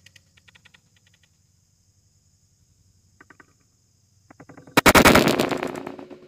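Horton Summit 150 crossbow firing about five seconds in: a sudden loud release that rings on and fades over about a second and a half. A few faint clicks come before it.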